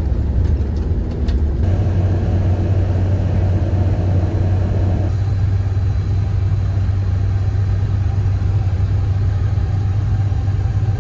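Bus engine and cabin noise heard from inside a moving bus: a steady low drone. A few short clicks come in the first second or so, and the middle-pitched part of the noise drops away about five seconds in.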